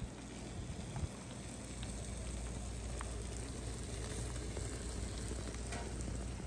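Fish fillets sizzling on a charcoal drum grill: a steady crackle with a few small pops, over a low steady hum.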